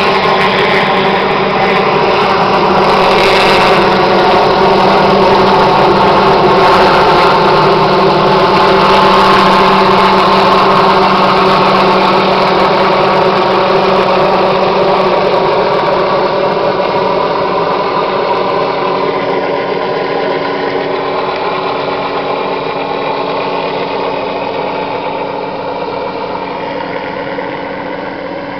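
Helicopter running steadily, with a constant turbine and rotor tone, growing gradually fainter over the second half.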